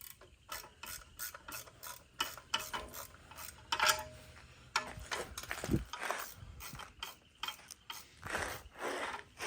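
Hand ratchet wrench clicking in short, irregular strokes as a torque converter bolt is worked loose, with a few longer scraping sounds near the end.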